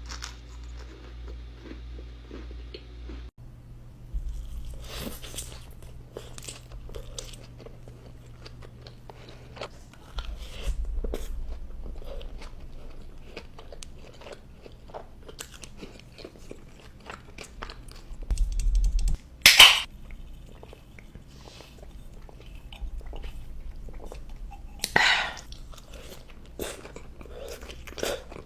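Close-miked eating: crunchy bites and chewing, with two especially loud crunchy bites, one past the middle and one near the end.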